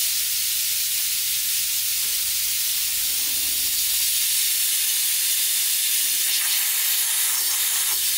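Compressed-air coolant mister on a belt grinder spraying an air-and-water mist from its nozzle: a steady, high hiss.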